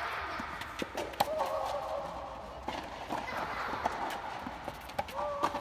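Tennis rally on a clay court: ball struck by rackets and bouncing, a few sharp knocks spaced out over several seconds against a steady hiss.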